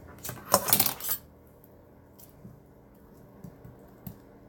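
A brief clatter of small hard objects being handled, lasting about a second near the start, followed by a few faint taps.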